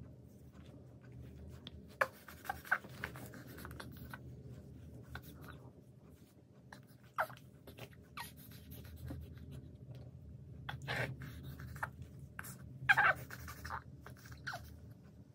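A young baby's short grunts and fussy whimpers, several brief ones, with light rubbing and rustling from a pad wiping his face, over a steady low hum.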